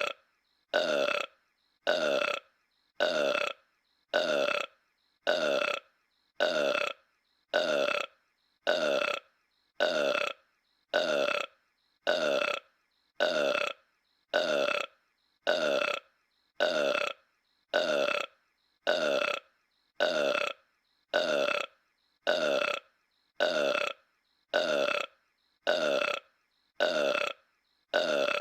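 King Homer's cartoon burp, one identical voiced burp clip looped over and over, just over a second apart with short silent gaps, each sliding slightly down in pitch.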